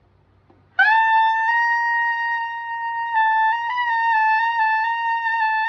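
Tenor saxophone playing one long held altissimo note, sliding up into pitch about a second in, with small pitch shifts partway through and a slight waver later on.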